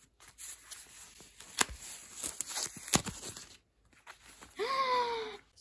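Rustling, crinkling and tearing of packaging ties being pulled off a doll's ankles, with a few sharp clicks among them. Near the end comes a brief drawn-out vocal sound, falling slightly in pitch.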